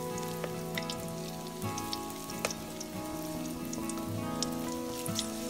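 Hot oil crackling and spattering steadily around breaded bread rolls deep-frying in a wok, with a dense patter of small pops. Soft instrumental music plays underneath.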